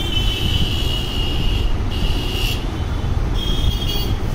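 Steady low rumble of road traffic, with a high-pitched tone sounding on and off three times over it.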